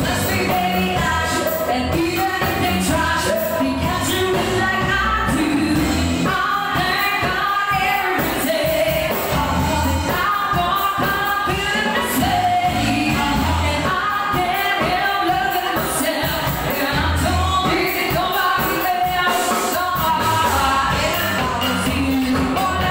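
Live band playing an upbeat pop song: singers over electric guitar and drums, with a steady beat.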